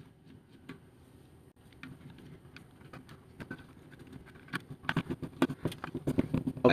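Small Phillips screws being backed out of a plastic multimeter case with a screwdriver: scattered light clicks and scrapes, becoming a busier run of irregular clicks about four and a half seconds in.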